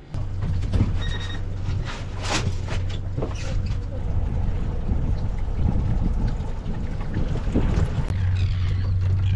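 An engine running steadily, with wind and several sharp knocks over it.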